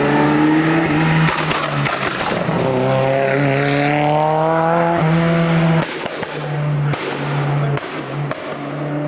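Historic rally car's engine at high revs under hard acceleration, its pitch rising steadily for a couple of seconds before it drops away sharply just past the middle.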